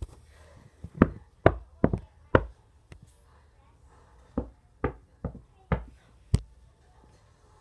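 A series of about ten sharp taps, unevenly spaced, in two runs with a pause of about a second and a half between them.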